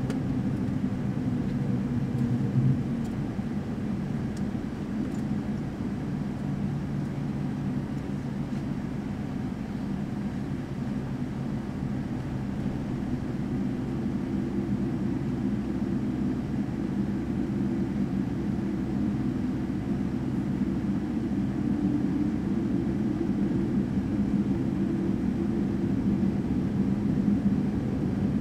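Cabin noise of a Boeing 787-9 taxiing onto the runway: a steady low hum from its General Electric GEnx engines at idle thrust over a faint hiss, heard from inside the cabin. A slightly higher note joins the hum about halfway through.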